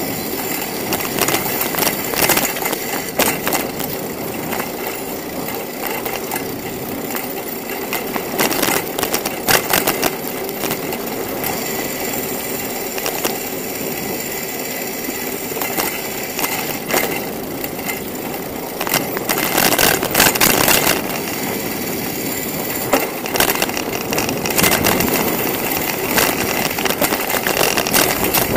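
Bicycle rolling along a city street: a steady rush of tyre and wind noise with frequent clicks and rattles from the bike, growing louder for a few seconds about a third of the way in and again two-thirds through.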